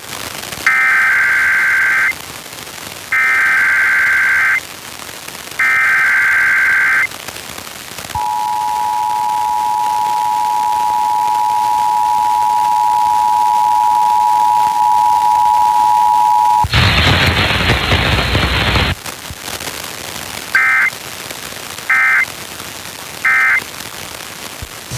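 Emergency Alert System broadcast: three buzzy SAME data-header bursts, then the steady two-tone attention signal for about eight seconds, then about two seconds of hiss, then three short end-of-message data bursts near the end, as heard when an EAS test is relayed over FM radio.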